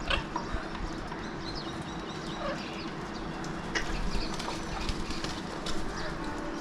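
Alexandrine parakeets giving short, scattered calls with quick pitch slides, with a small cluster of calls about four seconds in, over a steady low hum.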